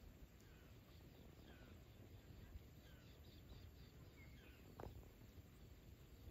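Near silence: faint outdoor ambience with scattered short, faint bird chirps and one brief click about five seconds in.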